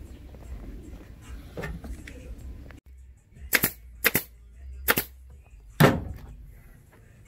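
Pneumatic upholstery staple gun firing four sharp shots in about two and a half seconds, from roughly halfway in, driving staples through gator-skin vinyl into the wooden seat base.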